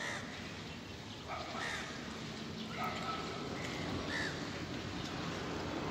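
Crows cawing: about four short caws, spaced a little over a second apart, over a steady low background noise.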